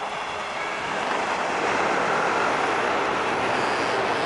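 A passing train's wheels rumbling on the rails, building over the first two seconds and then holding steady and loud.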